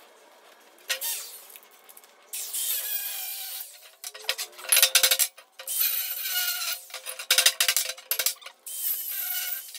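A power tool cutting through the steel of an empty propane tank to take its valve and top off, in several loud bursts with short pauses between.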